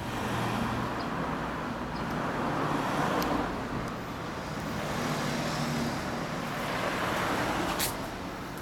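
Road traffic passing, a broad tyre-and-engine rush that swells twice, with a sharp click near the end.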